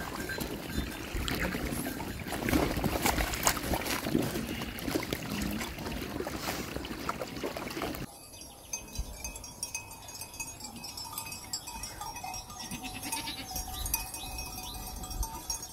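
A flock of sheep drinking at a water trough: many small irregular lapping and splashing sounds, with the animals close by. About eight seconds in this stops abruptly, leaving a quieter background with faint steady tones.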